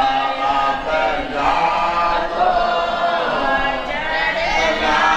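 Voices chanting a devotional song together, amplified through microphones, with long held, wavering notes.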